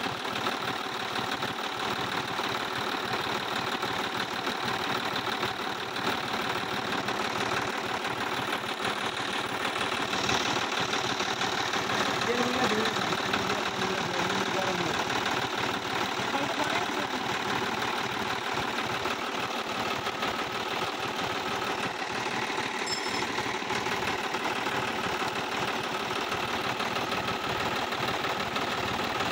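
Sonalika 50-RX Supreme tractor's diesel engine running steadily at idle.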